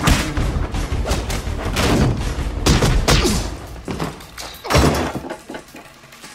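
Movie fight sound effects: a quick run of punches, blows and thuds from a hand-to-hand struggle over a tense film score, the blows stopping about five seconds in.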